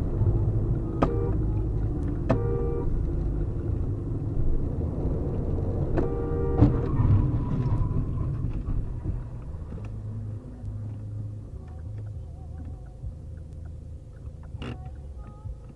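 Steady road and engine rumble from inside a car on an expressway, with a car horn sounding about two seconds in and again about six seconds in. A sharp knock about six and a half seconds in is the loudest moment, as a motorcycle collides with an SUV just ahead.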